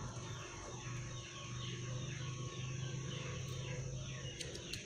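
Birds chirping in the background, many short falling calls repeated throughout, over a steady low hum.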